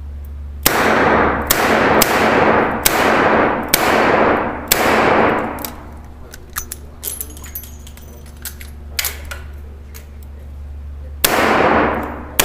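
Six shots from a Smith & Wesson Model 66 revolver fired in quick succession, emptying the cylinder, each with a long ringing tail. Then a few seconds of small metallic clicks and clinks: the cylinder being swung out, the empty cases ejected and a speed loader used. Firing starts again with a shot near the end.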